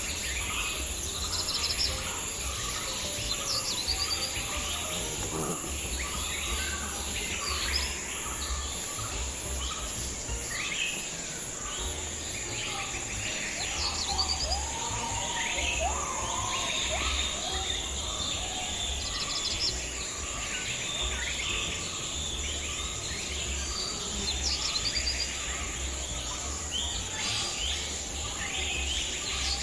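Many birds chirping and trilling over a steady, high insect drone, with a low rumble underneath: a natural outdoor soundscape.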